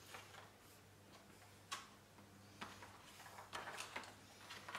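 Near silence broken by a few scattered light clicks and taps of a foam RC airplane wing and aileron being handled on a tabletop, over a faint steady low hum.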